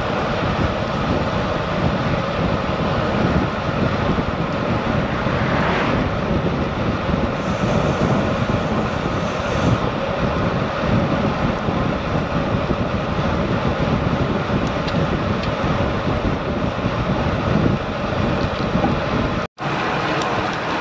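Wind rushing over a bike-mounted camera's microphone as road bikes ride fast in a group, with road noise underneath. The sound drops out for a moment near the end.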